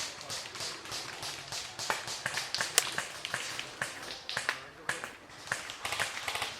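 Scattered airsoft gunfire: irregular sharp clicks and snaps, several a second, with a louder crack near the middle.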